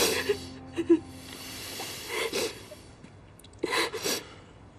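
A woman crying: a few short, shaky sobbing breaths, over faint background music.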